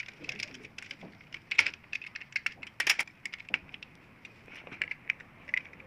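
Small metal hand tool clicking and scraping on the screws and aluminium guide rails of a paper feeder as they are adjusted: a run of irregular light clicks, with two louder knocks about one and a half and three seconds in.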